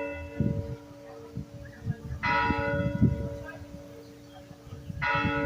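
A church tower bell tolling slowly, one stroke about every three seconds. It strikes about two seconds in and again near the end, and each stroke's clang fades into a long steady hum that carries on between strikes.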